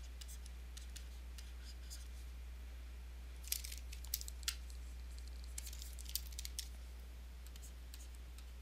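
Stylus tapping and scratching on a tablet surface while handwriting, in two short clusters of faint clicks a few seconds in, over a steady low hum.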